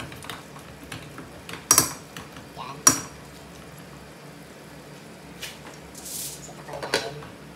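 Metal ladle stirring chunks of pork and potato in a cooking pot, scraping and knocking against the pot, with two loud clanks about two and three seconds in and a few lighter knocks later.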